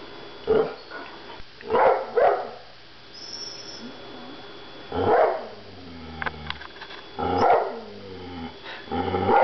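Airedale Terrier barking and 'talking': about six short loud barks, with a drawn-out vocal sound that wavers in pitch between some of them, the dog protesting at the packing.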